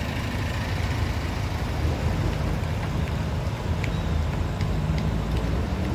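Heavy engines idling: a steady low rumble.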